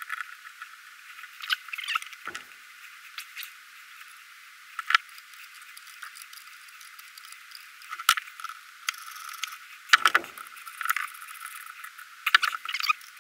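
Scattered metallic clicks and clinks of hand tools on a Mercruiser raw water pump as its housing bolts are tightened over a new wear plate, with short runs of quick ticking from a wrench or ratchet. The sound is thin, with no low end.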